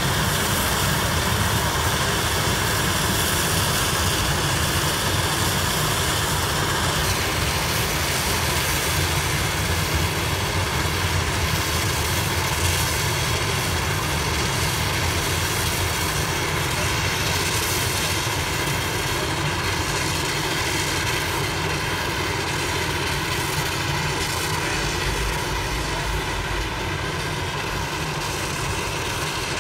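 Mount Washington Cog Railway steam locomotive climbing the grade as it pushes its coach, a steady rush of exhaust and hissing steam that fades slightly as it moves away.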